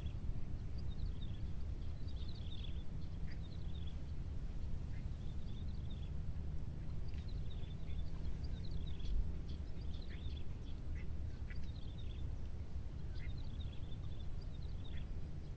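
Birds calling in short, high chirps, in scattered clusters, over a steady low rumble of outdoor background noise.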